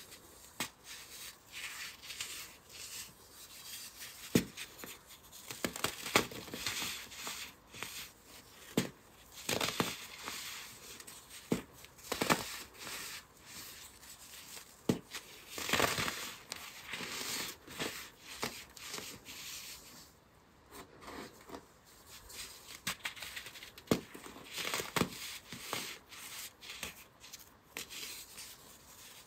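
A packed block of dyed baking soda being snapped and crumbled by hand: irregular crisp cracks as it breaks, between stretches of soft, grainy crunching as the pieces are squeezed apart.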